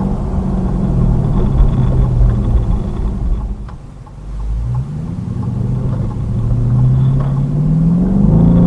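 Car engine and road noise heard inside the cabin: the engine eases off and drops to a low ebb about four seconds in during a U-turn, then accelerates, its pitch rising steadily through the second half.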